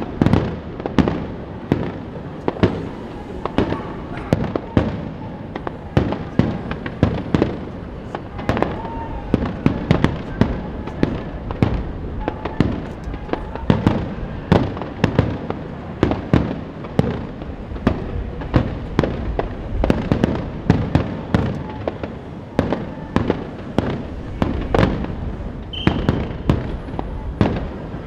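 Fireworks display: a dense, unbroken barrage of aerial shell bursts, several sharp bangs a second with crackle in between.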